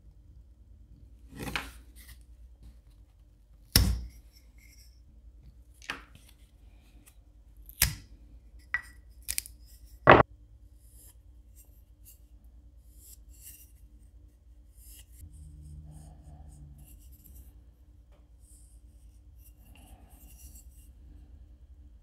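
A handful of sharp knocks and clicks as the basswood lure blank and tools are handled on a workbench, then faint, intermittent scratching of a mechanical pencil drawing guide lines on the bare basswood body.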